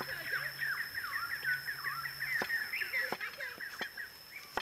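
Birds chirping in a quick, dense chatter of short falling calls that thins out near the end. Over it come a few sharp taps of a cleaver striking a wooden board as shallots are sliced, the first about halfway through.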